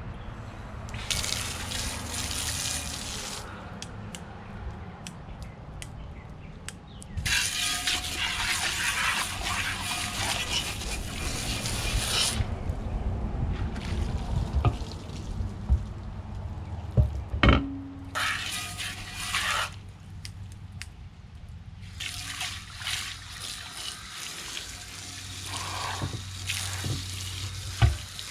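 Garden hose spray nozzle spraying water into an aluminium pressure canner pot in four spells of hissing spray, with water splashing out of the pot onto the deck boards. A couple of sharp knocks come midway, as the pot is handled.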